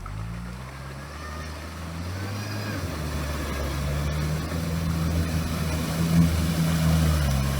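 All-terrain vehicle engine running with a steady low note, growing steadily louder as it comes closer.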